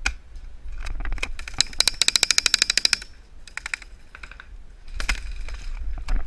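Rapid burst of full-auto airsoft gunfire, about ten shots a second for just over a second, followed by shorter bursts of a few shots and scattered single clicks of shots.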